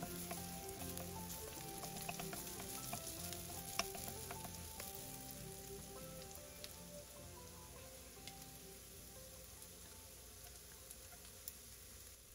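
Diced onion, ginger and garlic sizzling in oil and butter in a nonstick frying pan, an even hiss with scattered pops and crackles, easing off slightly toward the end.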